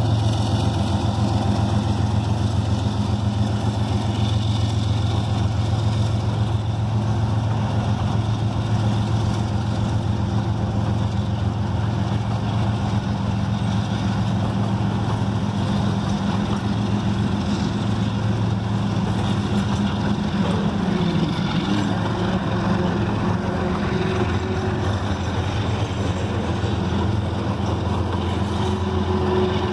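CSX freight train passing close by: the diesel locomotives' engines, GE Dash 9s and EMD SD40s, give a steady low drone, over the continuous rumble of freight cars rolling past on the rails.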